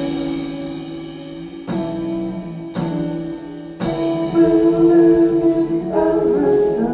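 Live band music: a fingerstyle acoustic guitar and a drum kit, with three sharp drum-and-cymbal hits about two, three and four seconds in that ring on, and a singing voice.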